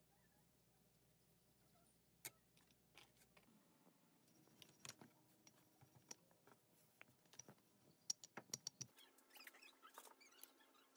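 Faint scattered taps and scrapes of hands and a wooden rolling pin working dough on a plastic board, with a quick cluster of clicks about eight seconds in.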